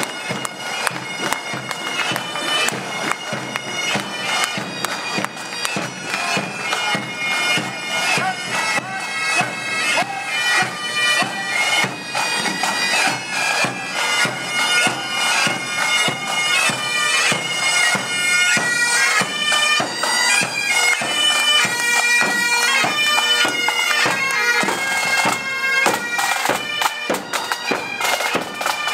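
Military pipe band playing: bagpipes carry a melody over the beat of snare and bass drums.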